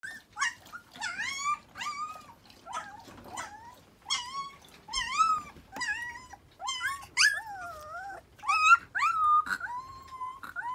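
Newborn husky puppies whining and crying over and over, a string of high wavering cries about one to two a second. They are hungry and calling for their mother before a feed.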